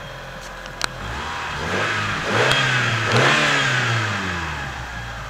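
The 2.0-litre four-cylinder engine of a 1996 Mitsubishi Eclipse, running with the hood open, is revved twice in quick succession from idle and then drops back toward idle. There is a sharp click about a second in.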